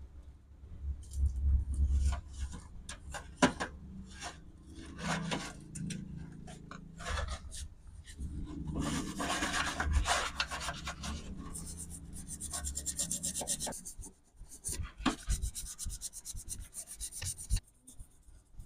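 Hand rubbing and scraping strokes, irregular at first with a few low bumps. In the second half they turn into runs of quick, even back-and-forth strokes, like filing or brushing.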